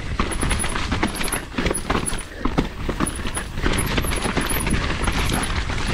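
Mountain bike riding down a rough dirt trail, heard from a camera mounted on the bike: a steady rumble of tyres and wind, with rapid, irregular clattering of chain and frame over roots and bumps.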